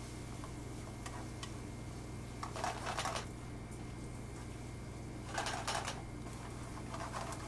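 Wooden spatula stirring rice and diced onion searing in oil in a non-stick frying pan: the grains rustle and scrape across the pan in two short bursts, about two and a half seconds in and again at around five and a half seconds, over a low steady hum.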